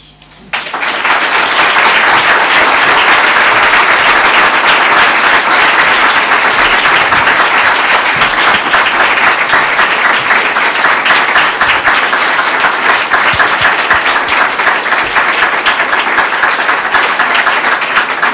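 Audience applauding, loud and steady, starting about half a second in.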